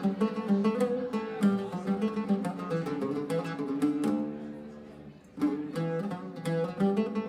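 Background music with plucked string instruments playing a melody; it fades down briefly about two-thirds of the way through, then picks up again.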